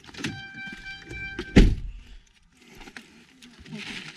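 A vehicle's door-open warning chime, a steady tone, stops as the SUV's door is slammed shut about a second and a half in; the slam is the loudest sound.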